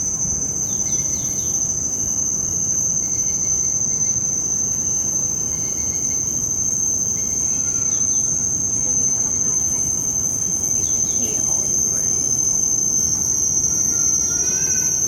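Steady high-pitched drone of forest insects, unbroken throughout, with a few short chirping calls here and there and a low rumbling noise underneath.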